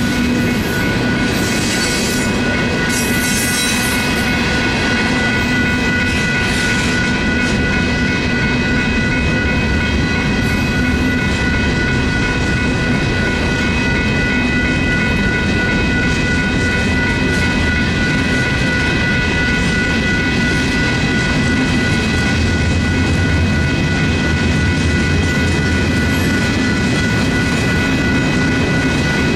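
Freight train cars rolling through a grade crossing: a steady rumble and rattle of wheels on rail, with a steady high-pitched ringing of several tones held over it.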